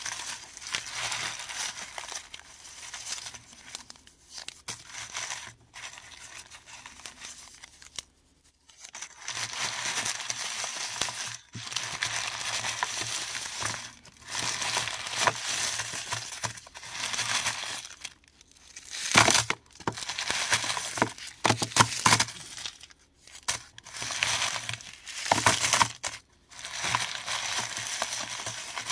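Paradichlorobenzene mothballs worked by hand: crunching and crinkling in bursts with short pauses, with several sharper cracks about two-thirds of the way through.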